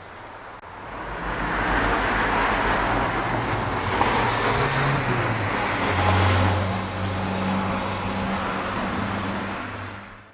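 A motor vehicle going past close by, its engine and tyre noise swelling about a second in, holding, then easing near the end before cutting off abruptly.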